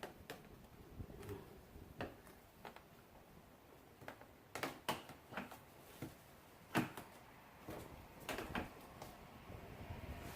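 Scattered light clicks and knocks of a plastic rock guard being handled and fitted to the car, with a sharper knock about seven seconds in and another near eight and a half seconds.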